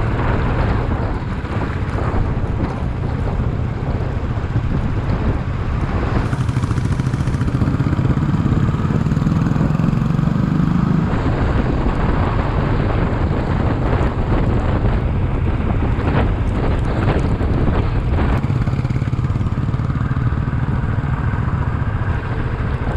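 Motorcycle engine running under way at steady speed. The engine note climbs from about eight seconds in, then drops suddenly about three seconds later.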